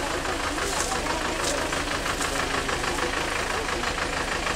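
Backhoe loader's diesel engine idling, a steady fast knocking chug.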